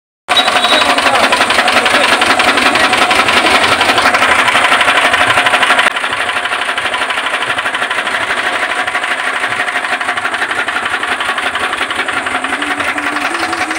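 Sugarcane juice crushing machine running, its motor-driven rollers and gears making a steady, fast mechanical clatter; it gets a little quieter about six seconds in.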